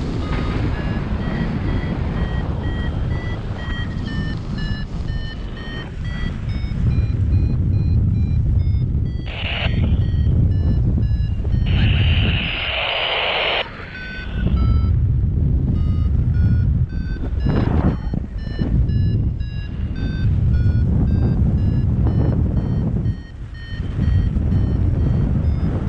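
Paragliding variometer beeping in a steady run of short tones whose pitch steps up and down, the sign of the glider climbing in lift. Wind buffets the microphone underneath, with a louder rush of noise about twelve seconds in.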